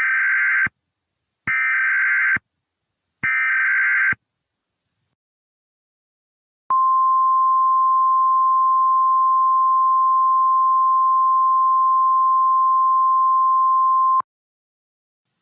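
Emergency Alert System SAME header: three short bursts of digital data warble, each a little under a second long. After a pause, a single steady alert tone plays for about seven and a half seconds: the 1050 Hz NOAA Weather Radio warning alarm that announces a new warning.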